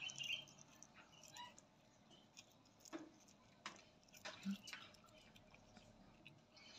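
A cat gnawing and chewing a cooked chicken leg bone: faint, scattered clicks and crunches of teeth on bone, a few sharper ones around the middle.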